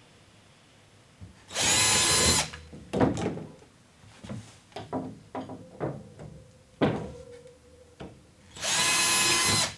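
Cordless battery drill with a 5 mm bit running in two short bursts of about a second each, drilling holes for shelf clips into the wall. Between the bursts come a series of short knocks and clunks.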